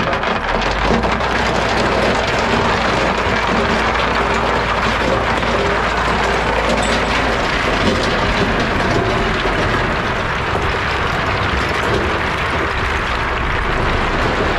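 Heavy-equipment diesel engine running under load while rip rap rock rattles, cracks and slides. The low engine note shifts about halfway through.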